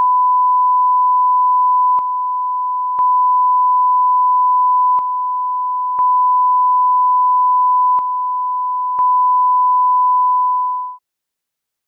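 Steady line-up test tone of a colour-bar leader: one pure beep-like tone that drops in level for about a second every three seconds, with a faint click at each change. It stops about eleven seconds in.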